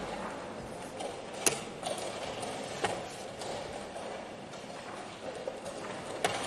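Wooden chess pieces knocked down on the board and chess-clock buttons tapped in a blitz game: a few sharp clicks, the loudest about a second and a half in, another near three seconds and one near the end, over low background noise.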